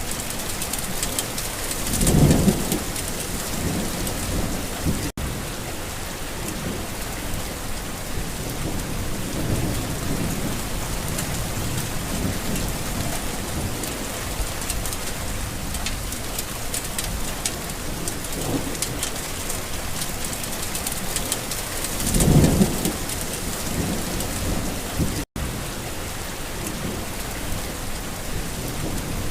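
Steady rain falling on a garden, with thunder rumbling: the loudest rolls come about two seconds in and again near the end, with fainter rumbles between. The sound cuts out for an instant twice.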